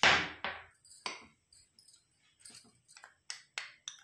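Steel kitchen utensils being handled: a short clatter, then a run of light clicks and taps of a spoon and small steel bowls.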